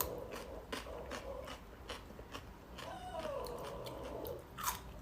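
Close-up chewing of food, with a run of small crunching clicks, and two drawn-out wavering tones, one near the start and one about three seconds in.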